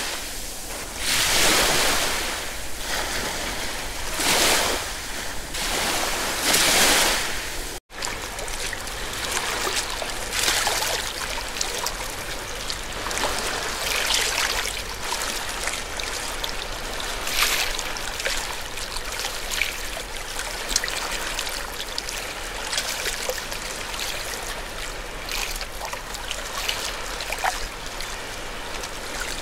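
Sea waves breaking on the shore, a surge and crash every two to three seconds. About eight seconds in the sound cuts off abruptly and gives way to a steady wash of water with small irregular splashes and trickles.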